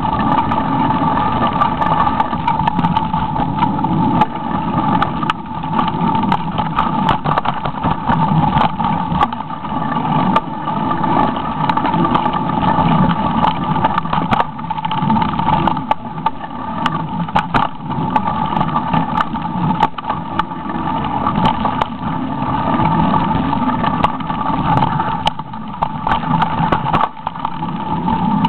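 Mountain bike ridden fast down a dirt forest singletrack, picked up by a camera riding along with it: a loud, steady rumble of wind and tyres on the trail, broken by frequent clicks and rattles over bumps.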